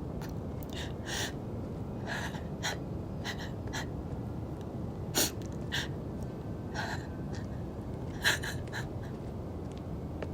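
A person's short, sharp gasping breaths at irregular intervals, the two loudest about five and eight seconds in, over a steady low background rumble.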